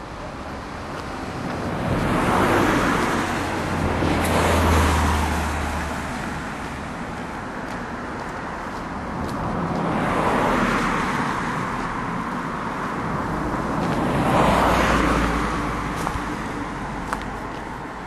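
Cars passing by on a road one after another, each one's tyre and engine noise swelling in and fading away, the loudest about four and a half and fourteen and a half seconds in.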